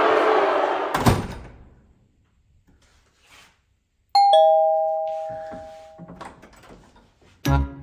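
A sharp thump about a second in, then a doorbell chime: a two-note ding-dong, high then lower, ringing out for about two seconds.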